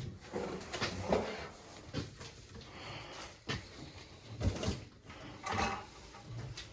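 Scattered knocks, clicks and light clatter of tools and metal parts being handled at a boiler.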